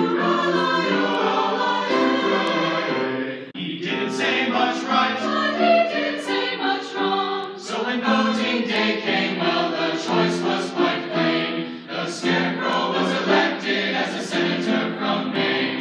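Mixed choir of men and women singing in harmony, with a brief break between phrases about three and a half seconds in.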